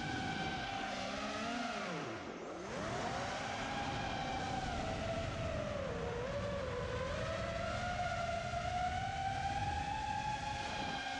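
Brushless motors and propellers of a 5-inch freestyle FPV quadcopter on a 6S battery whining as it flies, the pitch rising and falling with the throttle. The pitch drops sharply about two seconds in as the throttle is chopped, then climbs back. It dips again about six seconds in and rises steadily near the end.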